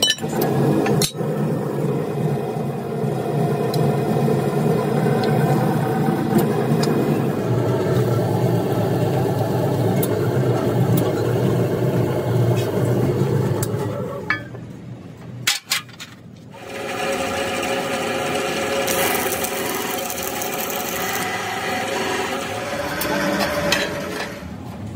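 Factory machinery running steadily, a continuous hum with light clicks and knocks. It drops away for about two seconds a little past halfway, with a couple of sharp clicks, then resumes.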